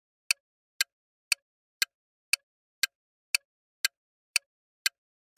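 Countdown-timer ticking sound effect: short, sharp clock ticks evenly spaced about two a second, with silence between them.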